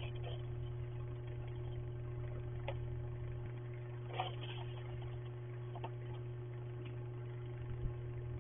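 Steady electrical hum and hiss from a security camera's microphone, with a few faint knocks and scrapes now and then.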